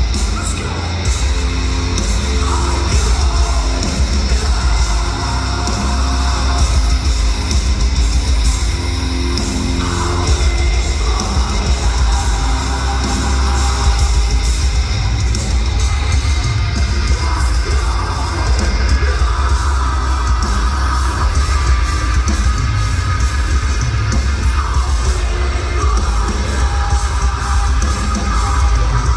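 Metalcore band playing live through the venue PA: loud distorted guitars, bass and drums, with screamed vocals in parts.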